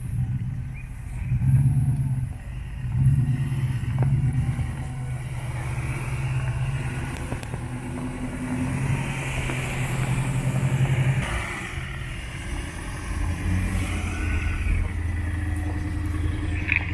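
Four-wheel-drive vehicles' engines working up a steep loose rocky slope, the engine note swelling and dropping with bursts of throttle. A Jeep Grand Cherokee drives past close by, then a pickup truck.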